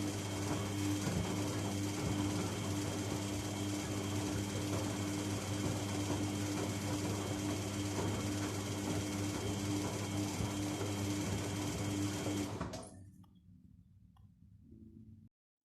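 Washing machine's electric motor running with a steady hum, stopping and falling away about twelve and a half seconds in.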